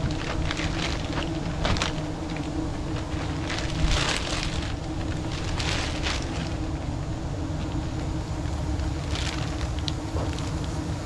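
Steady droning hum of a swarm of giant honeybees (Apis dorsata) around a nest being harvested, with scattered crackles.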